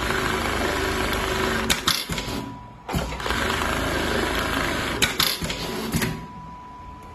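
Computerized pattern sewing machine stitching in two runs. It clacks to a stop about two and a half seconds in, at a programmed pause between two patterns. It starts again a moment later and runs until it stops with a few knocks about six seconds in.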